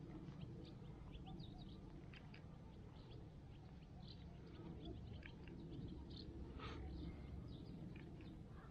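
Faint small birds chirping in short, irregular calls over a steady low rumble.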